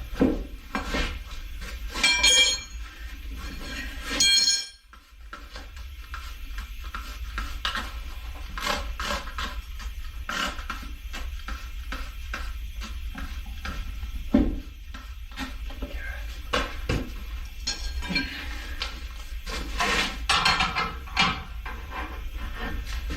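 Metal tools and parts clinking and clanking against metal in irregular knocks. Two louder ringing clanks come early, then a brief lull, then busier clattering later on.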